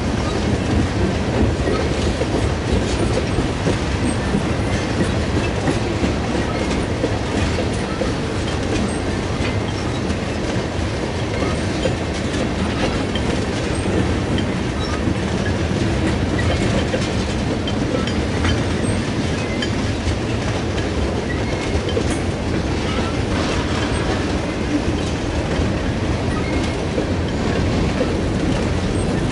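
Freight train tank cars and boxcars rolling slowly past, a steady rumble of steel wheels on rail with clickety-clack over the rail joints and occasional faint wheel squeaks.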